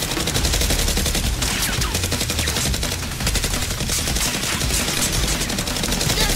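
Rapid, continuous gunfire: many shots a second in sustained machine-gun-like bursts during a Nerf blaster battle.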